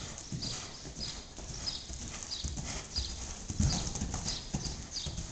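Gypsy Vanner horse's hoofbeats on soft sand arena footing: a steady rhythm of dull thuds with a brief scuffing hiss, about one every two-thirds of a second, as the horse moves under saddle.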